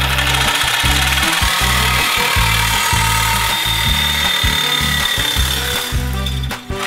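Reciprocating saw (Sawzall) running, its blade cutting through a motorcycle subframe's metal mounting plate, with a brief pause just before the end.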